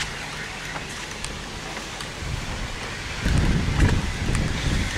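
Wind buffeting the microphone, with gusts rumbling louder about three seconds in, over the rustle of wind in the trees.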